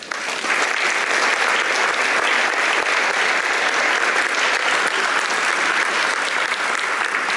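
Audience applauding, breaking out all at once and keeping up steadily.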